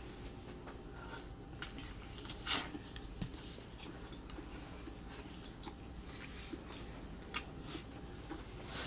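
Quiet eating sounds from a shrimp boil meal: chewing, with small clicks and crackles of food being handled, and one sharper crack about two and a half seconds in.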